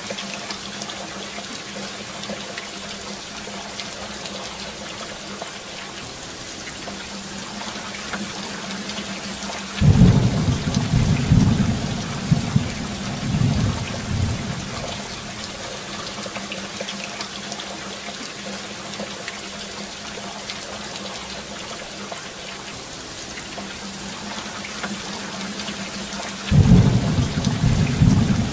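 Steady rain with a thunderclap about ten seconds in that rumbles on for several seconds, and a second thunderclap near the end.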